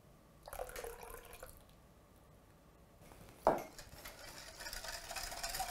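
Water poured from a small glass into a glass bowl of cake batter, a trickle lasting about a second. About three and a half seconds in there is a knock, and then a wire whisk beats the thin batter against the glass bowl in a steady swish that grows louder.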